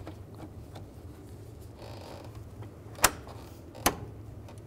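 Two sharp clicks just under a second apart, over faint handling noise and a low steady hum: a radiator coolant hose's quick-connect fitting being pushed on and snapping into place.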